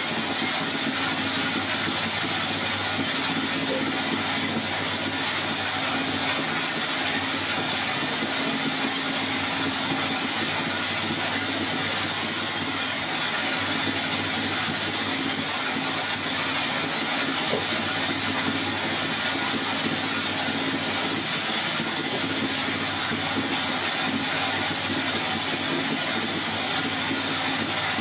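Band sawmill running steadily, its vertical blade cutting through logs and slabs. A brighter hiss comes and goes every few seconds over the constant machine noise.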